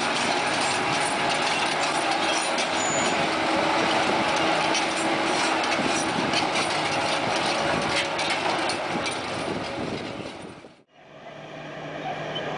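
Liebherr PR764 crawler bulldozer working rock: steady engine noise under dense clanking and scraping of steel tracks and rock. About eleven seconds in it cuts off abruptly, and a quieter, steady engine hum takes over.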